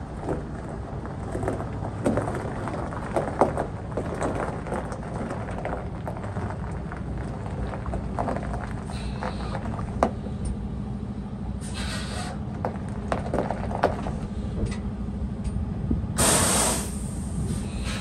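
Steady low rumble of idling diesel trucks with scattered clicks. A steady hum becomes clearer about halfway. Short bursts of air hiss come about twelve seconds in and again, louder, near the end.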